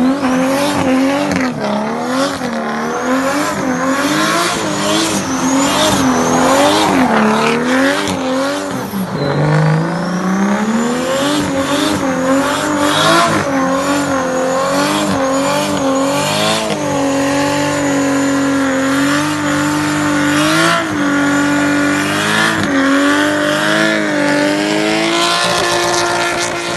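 Car engine at high revs, its pitch swinging up and down over and over, with tyre squeal. About nine seconds in the pitch drops low and then climbs steadily again.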